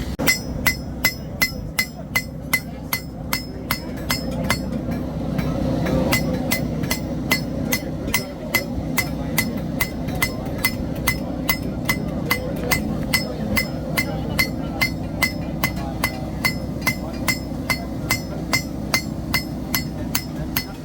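Hand hammer striking hot steel on an anvil in a steady rhythm of about two to three ringing blows a second, with a short pause about four to six seconds in: blade forging.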